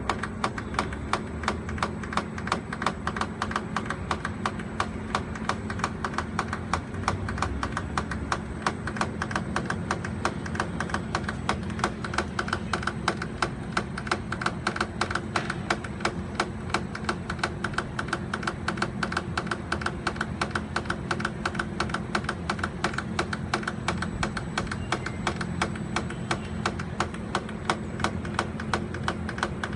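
Outdoor condenser unit of an LG Libero E+ inverter split air conditioner (US-Q092WSG3) running with a steady hum and a fast, even ticking knock, about three a second. This is the abnormal loud noise from the condenser.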